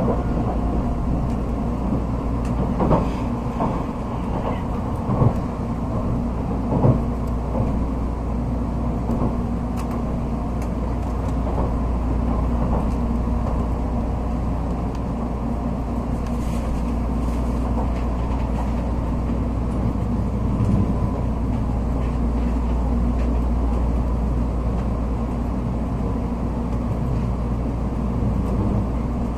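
Cabin noise of an N700A Shinkansen running into Hiroshima station: a steady low rumble, with a few sharp knocks about three, five and seven seconds in.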